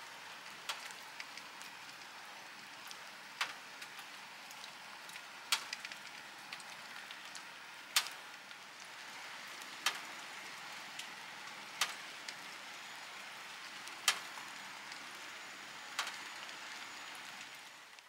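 Steady rain falling as a soft, even hiss, with single louder drips landing about every two seconds.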